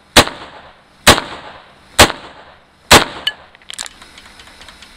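AR-15 rifle in 5.56×45 / .223 firing four single shots a little under a second apart, each sharp crack trailing off in a short echo. A few faint clinks follow after the last shot.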